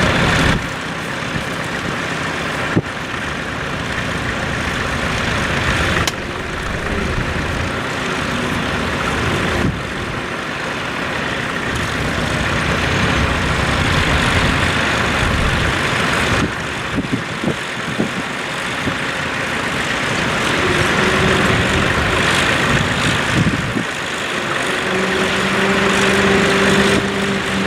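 Tractor engine running, with a steady pitched hum that sets in near the end.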